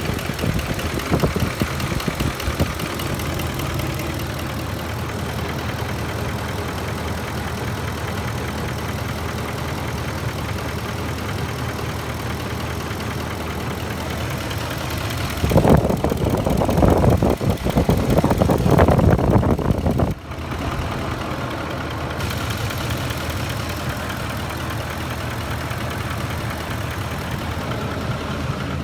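Ford 5.4 Triton V8 idling with a light knocking, which the owner suspects comes from a VCT cam phaser or the timing chain tensioners. About halfway through there is a louder, rougher stretch of a few seconds that stops abruptly.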